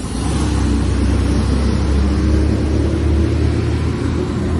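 Heavy diesel bus engine rumbling loudly as the bus passes close by, with the rush of road noise.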